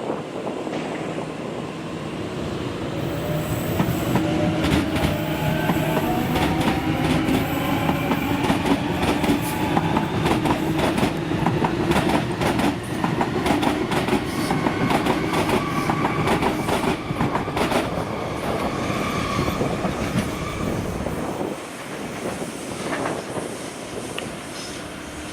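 Freight train passing: a steady rumble of rolling wagons with rapid wheel clicks over rail joints and drawn-out tones above it, dying away about three-quarters of the way through.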